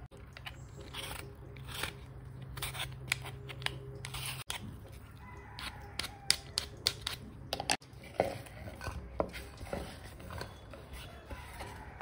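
Knife peeling and cutting a Mangalore cucumber on a wooden board: a run of irregular sharp slicing clicks and taps.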